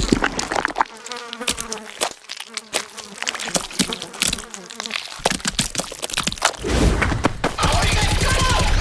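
Insect-like buzzing, like a housefly, broken by many sharp crackling clicks, growing denser and louder near the end.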